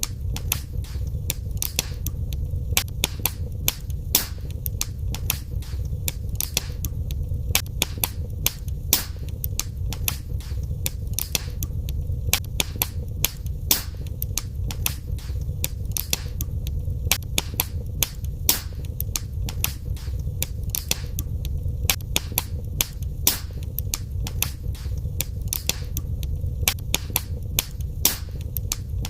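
Wood fire in a fireplace crackling, with many sharp pops and snaps, several a second, over a steady low rumble of burning.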